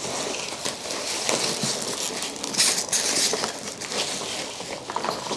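Polystyrene packing peanuts rustling in a cardboard box as hands dig through them, with a louder burst of rustling about two and a half seconds in.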